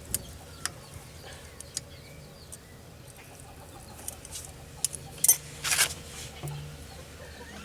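Hand tools clicking and tapping on metal while the rear wheel hub is put back together, scattered single strikes with a louder harsh rasping burst a little past the middle.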